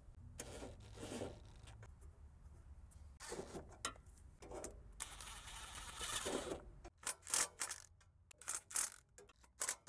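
Handling noises of a car repair: scattered scrapes and clicks of a part being fitted by hand, then a string of short, sharp clicks and knocks in the last three seconds.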